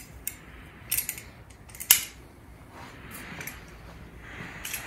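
Small metal hand tools clicking and clinking against an aluminium aircraft part as a drilled-out rivet is worked free: three sharp clicks about a second apart, then fainter clicks and handling noise.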